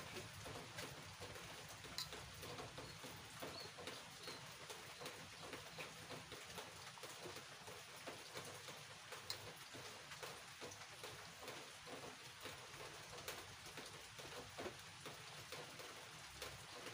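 Faint steady patter of rain, with many small scattered ticks and a few brief faint high chirps.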